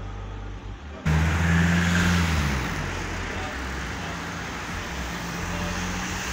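Street traffic. About a second in, the sound switches abruptly to a motor vehicle passing close by, its engine hum dropping in pitch as it goes, followed by steady traffic noise.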